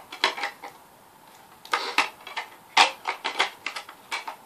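Plastic DVD case being handled and tilted in the hands: scattered soft clicks and rustles, the loudest about two and three seconds in.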